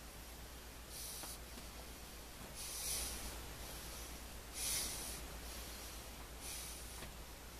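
A man breathing hard during floor exercises: short, hissy exhalations about every two seconds, over a faint steady low hum.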